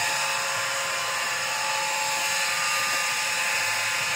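A motor running steadily: an even whine of several steady tones over a hiss, without change in speed or level.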